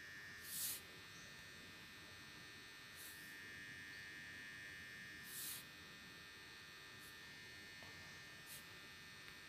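Near silence: room tone with a faint steady high electrical whine and a few brief soft hisses.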